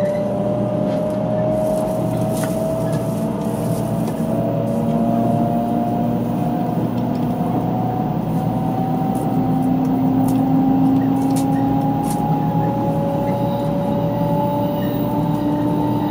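500 series Shinkansen accelerating, heard inside the passenger car: the electric traction drive's whine rises steadily in pitch over the wheel and running noise. The whine drops back and climbs again a couple of times as the train picks up speed in a tunnel.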